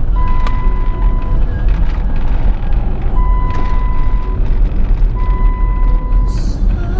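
Steady low road rumble of a car driving on the freeway, heard from inside the cabin, with a high electronic beep, about a second long, repeating roughly every two seconds.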